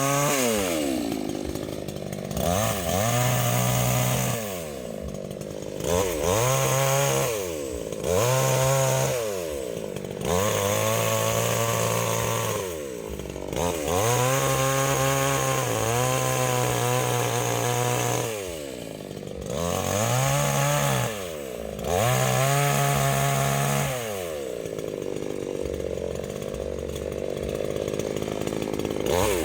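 Small, cheap, unbranded chainsaw cutting a fallen tree. The engine revs up to full speed and drops back to idle about nine times, the longest cuts held for several seconds.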